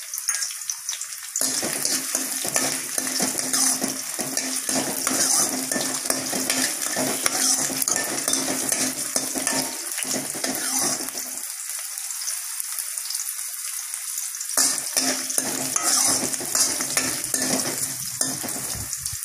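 Hot oil sizzling in a kadai as dried red chillies, garlic, ginger and coriander seeds fry, with a metal spoon stirring and scraping against the pan. The scraping drops out for about three seconds past the middle while the sizzle goes on.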